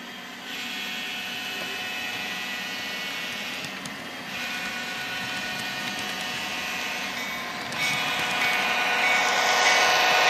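N scale model diesel locomotive sound from a DCC sound decoder through a tiny onboard speaker: a steady diesel engine sound with a thin, buzzy edge that steps up in loudness about half a second in, again around four seconds and near eight seconds. It mixes with the running of the model train rolling past.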